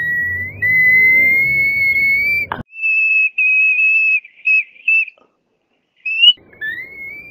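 Very high, pure whistle-like tones from a person climbing a vocal range scale through the D7 to F7 notes. A held note slides slightly upward, a higher note comes in several short pieces about three seconds in, and after a brief gap a tone glides upward near the end.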